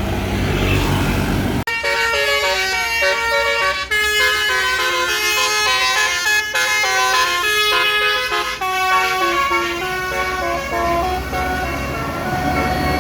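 Tour bus's basuri telolet horn playing a long stepping melody of sustained horn notes. It starts abruptly after a short stretch of low engine and traffic rumble.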